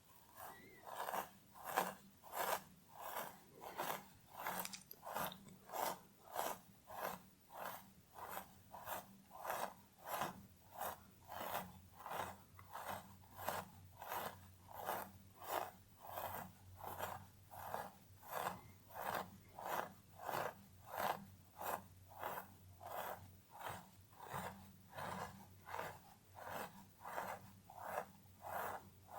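Scratching strokes through hair on a scalp, repeated in a steady, even rhythm of a little under two strokes a second, each a short crisp rasp.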